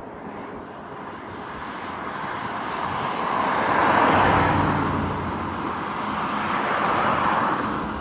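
Boeing 747's jet engines, a loud rushing noise that swells to a peak about four seconds in and again near the end.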